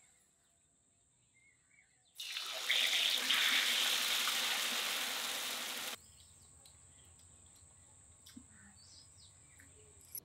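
Water running steadily, a loud even rush that starts about two seconds in and cuts off abruptly near the middle. Before and after it, a faint steady high whine and a few faint chirps and clicks.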